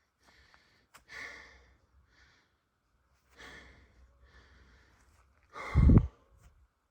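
A person breathing out heavily, several airy breaths a second or two apart, the last one much louder, blowing across the microphone.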